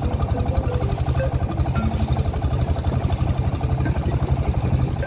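Small long-tail boat engine running steadily under way, a fast, even beat of exhaust pulses.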